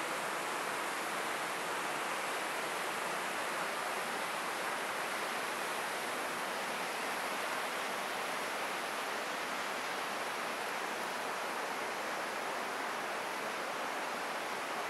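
Water of the Buna river rushing steadily, an even hiss that does not change.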